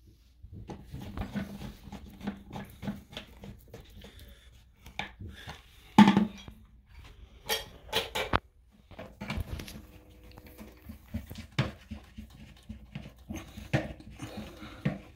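Knocks and clicks of hard plastic parts being handled while a bidet attachment is fitted under a toilet seat, with one sharp, louder knock about six seconds in and a quick run of clicks about two seconds later.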